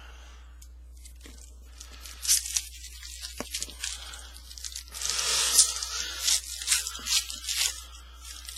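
A foil trading-card pack wrapper tearing open and crinkling in a run of crackly rips, starting about two seconds in and going on until near the end.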